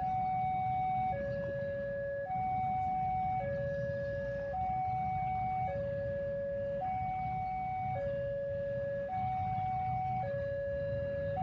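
Railway level-crossing warning alarm: an electronic two-tone signal alternating a higher and a lower tone, each held a little over a second, over a steady low rumble.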